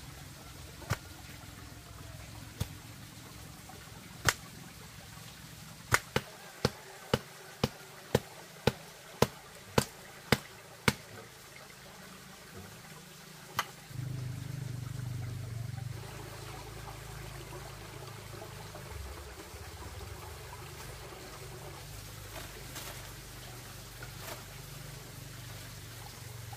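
Sharp knocks as a bamboo stake is rammed into garden soil, a run of about ten coming about two a second. Later, after a sudden change, a steady low rush that sounds like running water.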